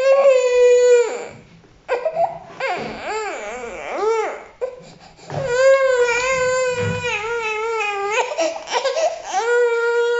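Baby crying: a run of loud, long wails with short breaths between them, one wavering up and down in pitch.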